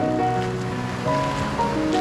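Background music: a melody of held notes changing pitch every few tenths of a second, over a steady rushing noise.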